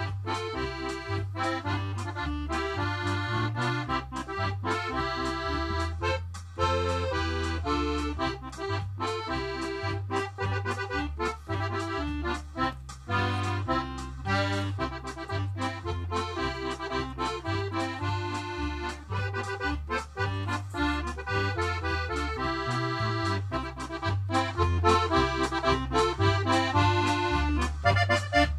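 Instrumental background music: an accordion-led tune over a steady bass beat, a little louder in the last few seconds.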